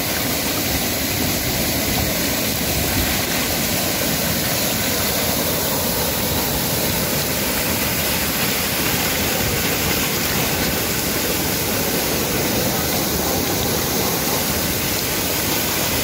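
Waterfall pouring down a rock face into a pool: a steady, loud rush of falling water heard close to the fall.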